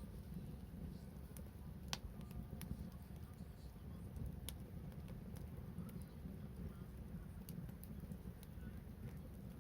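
Wood bonfire crackling, with scattered sharp pops and snaps, one louder pop about two seconds in, over a low steady rumble.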